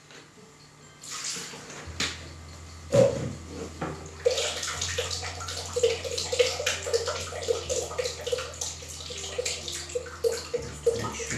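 Small countertop electric blender running, its motor humming steadily as it churns a liquid smoothie, with sloshing and churning over it. The motor starts about two seconds in, a sharp knock comes about a second later, and the motor stops shortly before the end.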